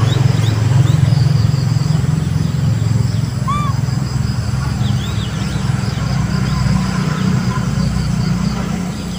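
Low, steady rumble of a motor vehicle engine running nearby, slowly fading. A single short high chirp comes about three and a half seconds in.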